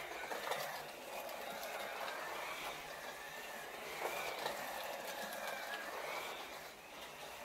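Scalextric slot cars running round the track, their small electric motors whining, the pitch rising and falling as the cars speed up and slow down through the corners, with a few light clicks.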